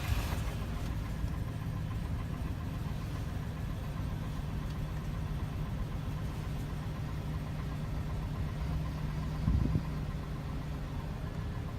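A 2001 Chevy Silverado's 4.8-litre V8 idling roughly just after a cold start, with one brief louder burst about nine and a half seconds in. The rough idle happens only when the engine is cold and is milder than usual here; a mass airflow sensor code persists after a new sensor, and the owner wonders about the intake manifold gaskets.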